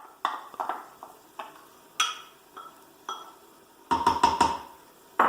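A utensil clinking and knocking against a cooking pot as chopped onion is added: scattered light clicks with a short ring, then a quick run of four louder knocks about four seconds in, and one more at the end.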